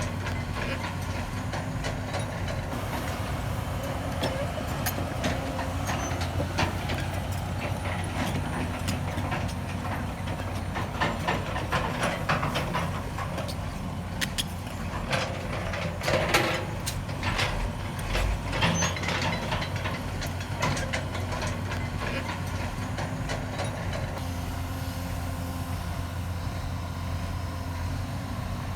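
Heavy diesel construction machinery running steadily, with a run of sharp metallic clanks and knocks in the middle.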